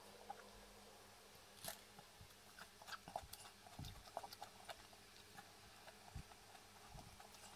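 Near silence with faint, scattered clicks and a few soft knocks: light handling noise of fresh rice-paper spring rolls being lifted and dipped into a bowl of sauce.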